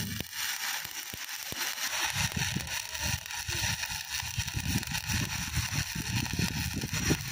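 Stick-welding arc from an E6013 electrode burning on a carbon-steel pipe-to-flange joint: a steady crackling sizzle. An irregular deeper rumble joins it from about two seconds in.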